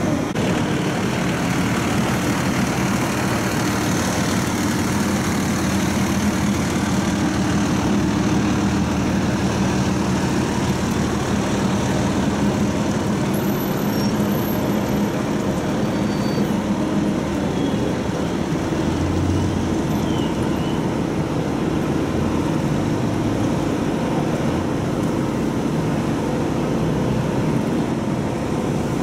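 Large fire trucks' diesel engines idling in a steady low hum, with city street traffic noise around them.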